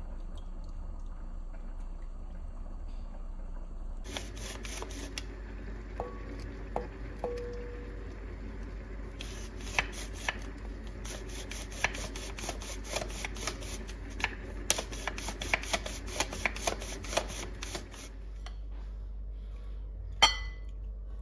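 Food-preparation handling sounds at a glass mixing bowl: scattered light clicks, taps and rustles, then one sharp clink on the glass near the end as penne is tipped into the bowl.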